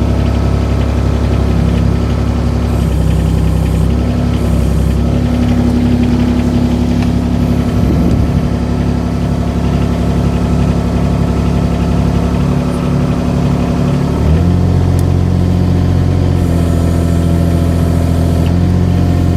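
Engine of a small hydraulic digging machine running steadily, its note changing audibly about fourteen seconds in.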